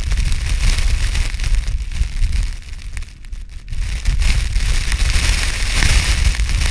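Strong wind rumbling on the microphone, with wind-blown ice crystals and snow hissing over it. The gust and the hiss strengthen about four seconds in.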